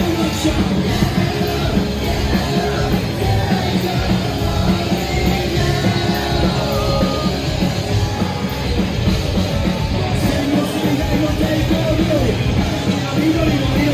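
Live rock band playing loudly, electric guitar, keyboards and drums, with a vocalist singing and yelling into the microphone.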